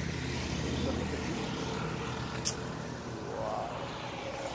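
Motor vehicle engine rumbling past, fading after about a second. A single sharp click comes midway.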